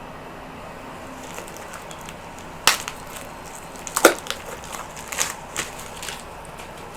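A stack of Pokémon trading cards and their packaging being handled, giving a few sharp crackling snaps. The loudest come about 2.7 and 4 seconds in, with smaller ones following over the next two seconds.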